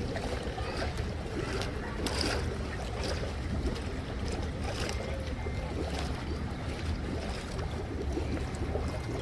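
Steady rushing and splashing of a garden waterfall.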